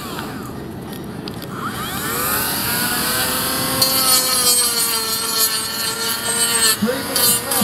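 Cordless mini grinder fitted with a tungsten-carbide hoof-grinding disc, running against hoof horn. Its whine dips and rises in pitch in the first two seconds, then holds steady, and a rasping grinding noise joins about four seconds in.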